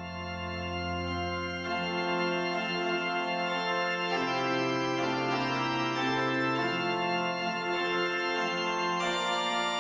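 Organ music: slow, sustained chords held steady, moving to a new chord every few seconds.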